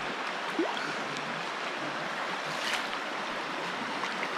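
Steady rushing of creek water running over shallow rapids. A brief rising squeak comes about half a second in.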